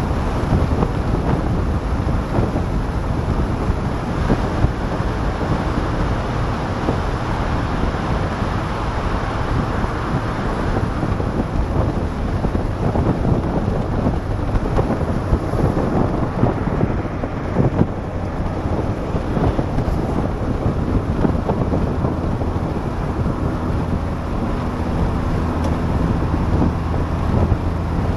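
Wind buffeting on the microphone and road noise in an open-top Saab 900 S convertible at motorway speed, a steady low rumble. A steady engine hum comes through under it in the last few seconds.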